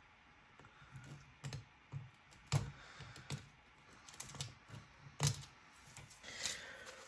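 Light, irregular clicks and taps of small hard parts and tools being handled during an iPad screen repair, about one every half second.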